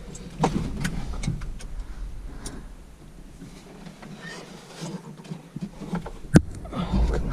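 Scattered clicks and knocks from the tractor's range shift linkage being worked by hand, with one sharp knock about six seconds in.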